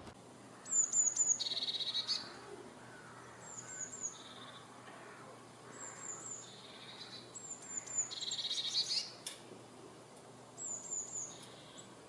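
Eurasian blue tit singing: about five phrases, each a quick run of three or four high, thin notes followed by a lower trill.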